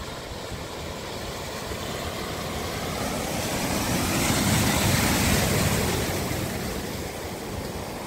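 Audi e-tron SUV ploughing through floodwater: a rushing wash of spray and tyre splash that swells as the car comes closer, peaks as it passes about four to five seconds in, then fades as it drives away.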